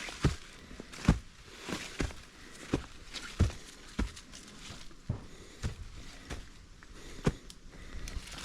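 A hiker's footsteps climbing a steep mountain trail, a steady tread of about one and a half steps a second.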